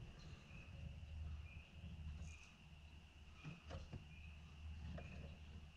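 Faint insect chirping: a steady high trill pulsing evenly, over a low hum. A few soft clicks come from a caulking gun being squeezed to lay a bead of butyl sealant.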